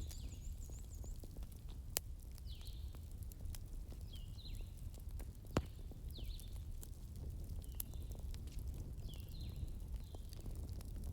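Crackling fire: a steady low rumble with scattered crackles and two sharp pops, about two seconds in and about halfway through. Short high chirping calls repeat every second or two over it.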